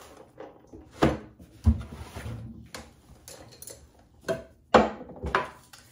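Toiletry bottles and cans knocking and clattering against each other and the cabinet as someone rummages inside a bathroom under-sink cabinet: about seven irregular knocks, the sharpest near the end.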